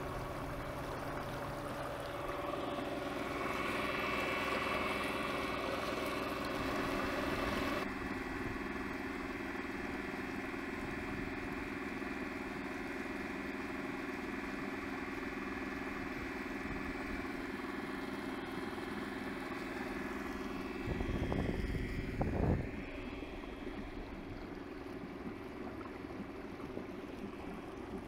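Small boat under way, water rushing and splashing along the hull over the steady whine of a 2,000-watt e-bike motor driving a converted outboard. About three-quarters of the way through, a brief loud low rumble.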